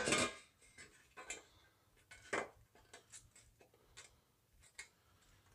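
Scattered light clicks and taps, with one louder knock a little over two seconds in, as a hand-bent sheet-metal patch and a small tool are handled on a workbench.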